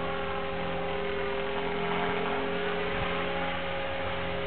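Align T-Rex 500 electric RC helicopter flying aerobatics overhead: the steady hum and whine of its motor and spinning rotors, holding an even pitch.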